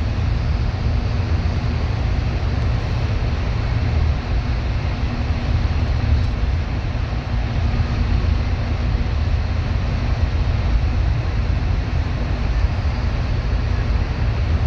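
A bus running steadily on the road: a constant low engine drone with a steady hum and road noise, unchanging throughout.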